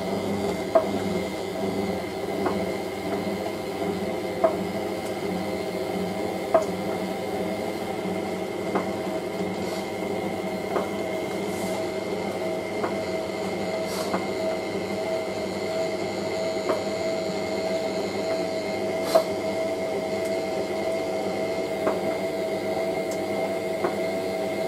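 Hotpoint 9530W Electronic 1000 Plus washing machine on its distribution drain: the motor turns a drum of wet towels while the water is pumped out, a steady running sound with a light knock about every two seconds. The owner puts the knocking down to worn shock absorbers.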